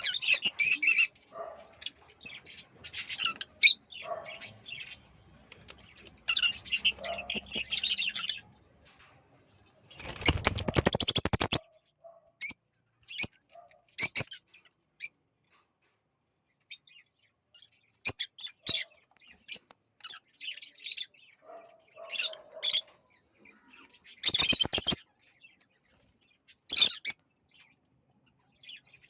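Ringneck parakeets calling in short, sharp chirps and squawks, on and off. There are two louder flurries of wing flapping, one about ten seconds in and one near twenty-four seconds.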